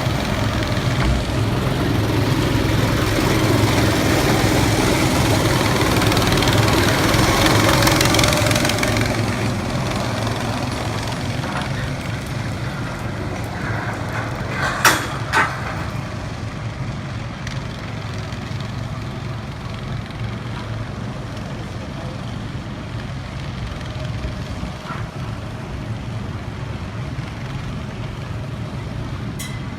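Go-kart engine running steadily, louder with a rushing hiss for about the first nine seconds and then quieter. A couple of sharp clicks about halfway through.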